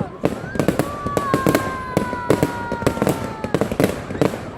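Many fireworks going off at once: rapid, overlapping bangs and cracks. Through most of it run long whistles that slowly fall in pitch.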